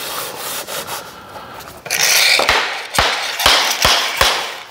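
Vinyl flooring plank scraping and rubbing against the subfloor and the neighbouring plank as it is angled and slid into the tongue-and-groove joint. In the second half the scraping gets louder, with a run of sharp knocks as the plank is worked down into the locking joint.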